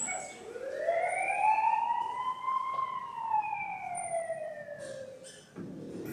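A single siren-like wail that rises slowly in pitch for about two and a half seconds, then falls for about as long.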